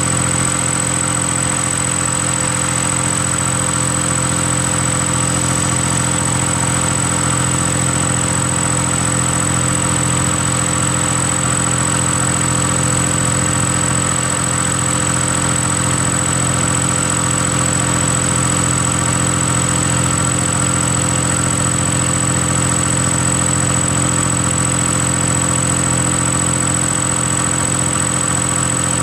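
Several garden tractors' small engines running together under load as they pull plows through the soil, a steady drone that never breaks. A thin, steady high tone runs over it throughout.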